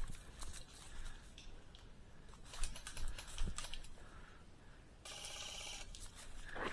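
Airsoft game clicks and snaps: scattered sharp clicks, a quick cluster of them about two and a half seconds in, then a steady buzz lasting about a second that starts and stops suddenly.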